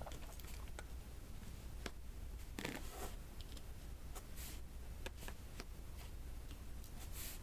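Faint, scattered clicks and taps of a diamond painting pen picking up round resin drills and pressing them onto the sticky canvas. Two brief scratchy rustles stand out, one about two and a half seconds in and one near the end.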